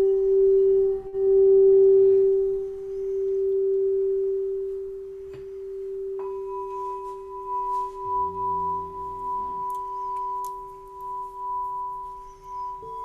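Singing bowl ringing a low, gently pulsing tone that slowly fades. About six seconds in, a higher bowl is struck and rings on over it, and another tone joins just before the end.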